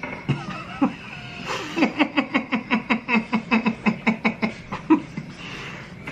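A person laughing hard in a fast, even string of short 'ha's, about six a second, for some three seconds.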